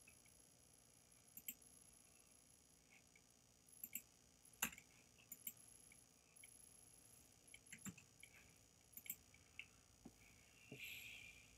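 Faint, scattered clicks of a computer mouse and keyboard, irregular and spaced a fraction of a second to a second apart, the sharpest one about halfway through, against near silence.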